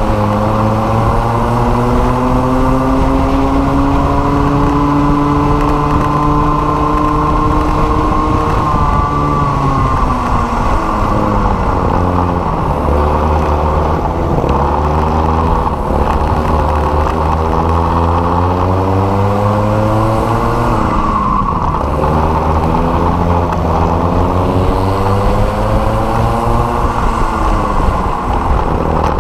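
Racing kart engine at full throttle, heard onboard at close range, revving up along the straights and dropping off into the corners. Its pitch climbs for the first eight seconds or so, falls away, then rises and falls again several times.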